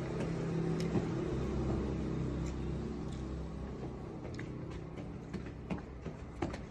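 A low, steady motor hum that grows louder over the first couple of seconds and then slowly fades, with a few faint clicks.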